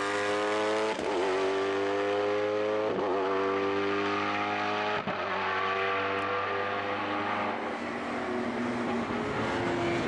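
Ford V8 race car engine accelerating hard, its pitch climbing and breaking for upshifts about one, three and five seconds in. It then holds a steady note before dropping lower and starting to climb again near the end.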